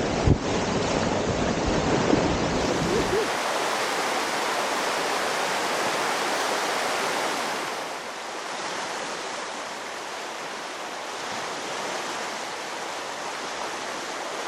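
Rushing water of a fast, clear mountain creek running over lava rocks, a steady hiss heard from on the water. A sharp knock right at the start, and the rushing eases a little about eight seconds in.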